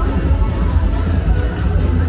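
Loud electronic dance music with heavy bass, played over bar sound systems along a nightlife street.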